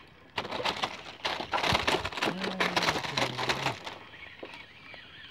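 Shimano Siena 4000 spinning reel being cranked: a rapid, irregular run of clicks lasting about three seconds, stopping near the end, with a low hum that steps down in pitch partway through.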